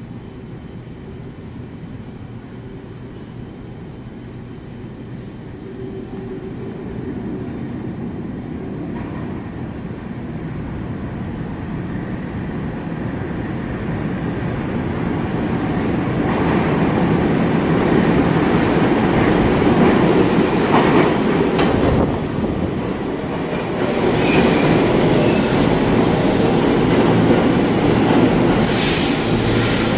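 New York City Subway train approaching through the tunnel, growing steadily louder over the first half and then running loud, with wheel squeal in the second half.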